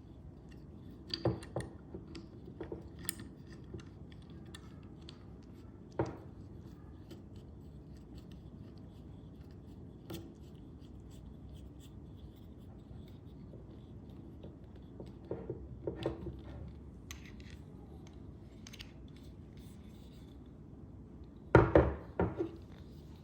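Metal parts of a panoramic tripod head being handled, fitted and set down: scattered clicks and knocks, with the loudest clatter of several knocks near the end.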